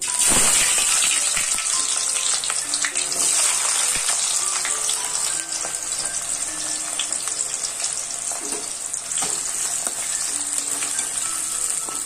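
Chopped onions hitting hot oil in a kadhai, bursting into a loud sizzle all at once, then frying steadily with scattered clicks and scrapes of stirring.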